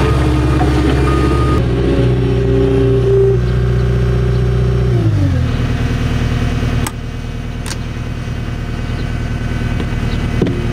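Caterpillar 242D skid steer's diesel engine running at high throttle, heard from inside the cab. About five seconds in it winds down in pitch and settles to a lower, quieter running speed. A few sharp clicks are heard in the second half.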